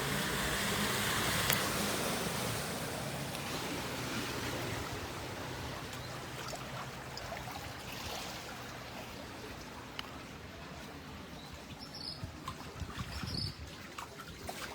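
Floodwater running along a street after heavy rain, a steady rushing trickle that slowly gets quieter.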